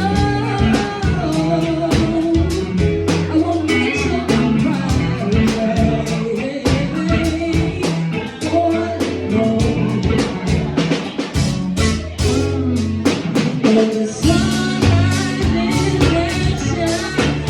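A song with singing, played by a band with guitar and drum kit at a steady beat, in a blues or rock style.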